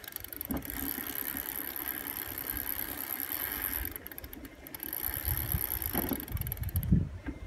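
Freshly oiled chain of an upside-down single-speed bicycle running over its sprockets as the rear wheel spins and the crank is turned by hand, a steady mechanical running sound. A few low knocks and rumbles come in near the end.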